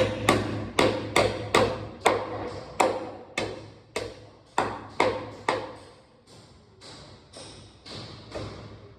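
Hammer driving a concrete nail into a hard masonry wall: sharp metallic blows about two a second, each with a short ring, growing lighter and sparser after about six seconds as the nail goes home.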